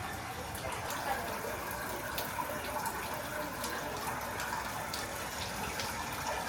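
Water running and splashing steadily in an exhibit pond, with many small drips and splashes.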